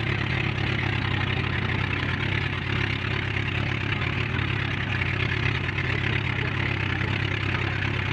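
Engine of an outrigger bangka running steadily as the boat moves along, a constant low drone with an even hiss over it.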